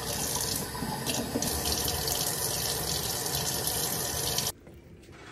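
Kitchen tap running in a steady stream over leaves being rinsed above a stainless steel pan, then shut off suddenly near the end.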